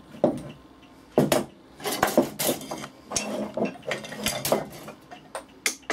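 Steel hand tools, chisels among them, clinking and knocking against each other and the wooden workbench as they are picked up and put down: a string of separate sharp clicks and knocks with short pauses between.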